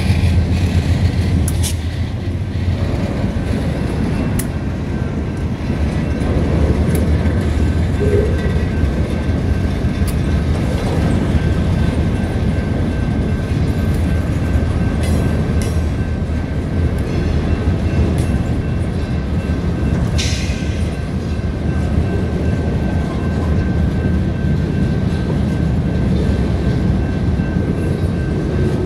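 A diesel-hauled freight train passing close by. The locomotives' engines hum low for the first couple of seconds, then boxcars roll past steadily on the rails.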